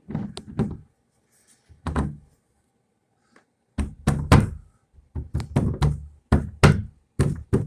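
A run of about a dozen sharp knocks and thuds, unevenly spaced: a few at the start, one about two seconds in, then a quicker series through the second half.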